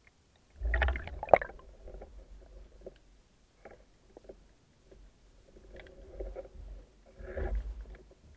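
Underwater handling noise from a speared brown meagre on the spear shaft and line: three spells of muffled knocking and rustling, the first the loudest, with one sharp click in it.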